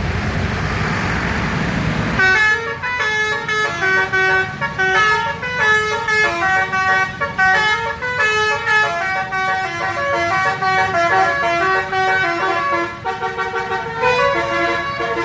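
Bus telolet horn, a multi-tone musical air horn, playing a melody of quick stepped notes that starts about two seconds in over the rumble of traffic and engine.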